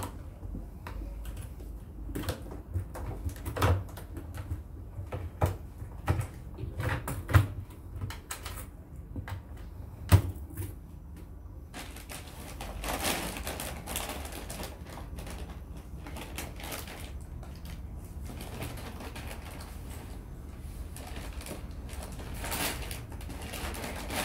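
Irregular clicks and knocks of hands working a rubber door seal onto the drum opening of a front-loading washing machine, with a sharper knock about ten seconds in. After that the clicking gives way to softer rustling and handling noise.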